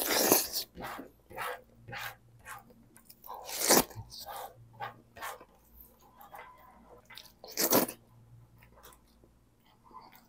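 Close-miked eating of saucy beef masala by hand: wet chewing and lip-smacking with many short clicks, and three louder smacks about four seconds apart.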